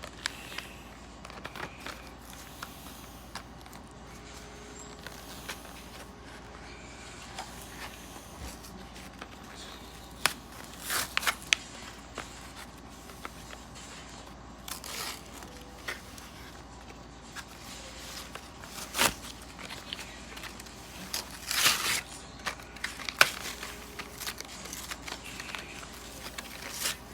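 A toy's cardboard box and plastic packaging being opened by hand: scattered crinkling, tearing and clicks, with louder rustles about eleven seconds in and again around twenty-two seconds.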